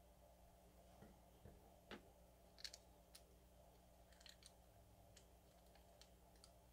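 Near silence broken by a handful of faint, scattered clicks and ticks of small parts being handled.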